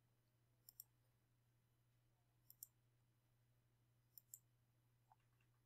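Near silence with three faint double clicks of a computer mouse, spaced about two seconds apart, over a low steady hum.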